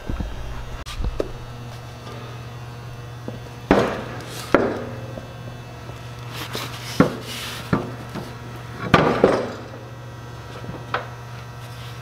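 Scattered knocks, thuds and short scrapes of a Power King tractor's rear wheel, a muddy lug-tread tyre on a steel rim, being handled and set onto its hub, over a steady low hum.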